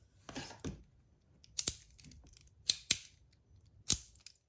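Sharp clicks and clacks as a heavy stainless-steel magnetic fidget is handled: a quick pair about a second and a half in, two close together just under three seconds in, and one more near the end.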